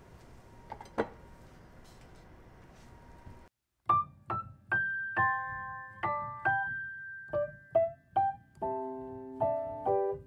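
A few seconds of quiet kitchen room tone with a single light clink about a second in, then soft solo piano music begins about four seconds in: single notes, then chords.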